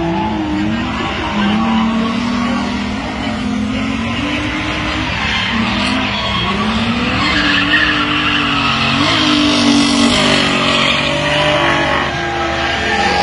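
Drift car's engine revving up and down at high revs as it slides through the corners, with a steady hissing tyre screech from the spinning rear tyres that grows louder through the middle.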